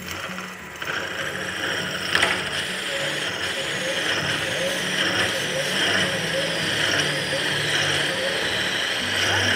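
Annular cutter in a milling machine spindle cutting through hardened abrasion-resistant steel plate: a steady metal-cutting whine and ringing over the machine's hum, with one sharp click about two seconds in.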